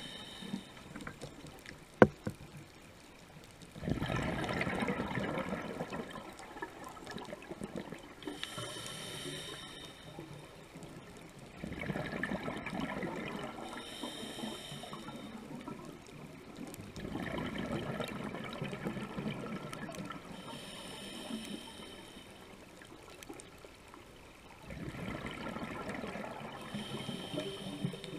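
Scuba regulator breathing underwater: a thin, whistling inhale through the regulator followed by a long rush of exhaled bubbles, about four breaths six or seven seconds apart. A single sharp click about two seconds in.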